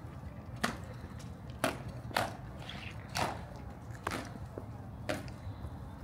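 Ceremonial marching steps of an honour guard: hard boot heels striking stone paving in a slow, measured beat of about one strike a second, over a steady low rumble.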